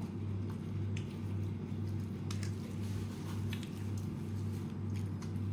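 Crispy fried chicken being torn apart by hand, its coating giving scattered crackles and crunches. A steady low hum runs underneath.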